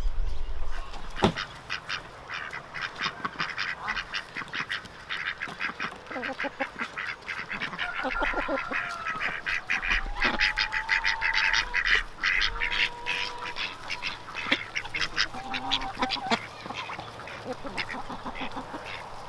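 A flock of domestic ducks quacking continuously, many rapid, overlapping calls. A sharp knock about a second in is the loudest sound.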